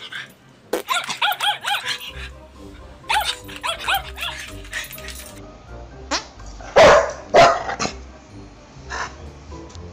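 A dog giving quick high yips in two runs, then two loud barks about seven seconds in, over background music.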